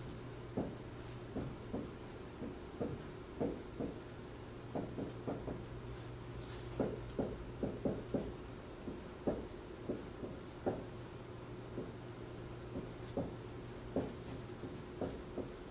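Marker writing on a whiteboard: a run of short, uneven strokes as words are written out by hand, over a steady low hum.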